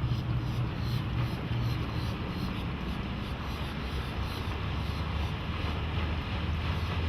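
Twin Yamaha 130 HP V4 two-stroke outboard motors running steadily with the boat under way, a constant low drone.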